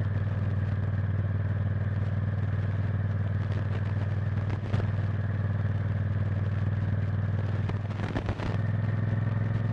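Honda Varadero XL1000's 1000 cc V-twin engine running steadily at low, even revs while the motorcycle rides at a slow pace. A single knock comes near the middle, and the engine note wavers and dips briefly about eight seconds in.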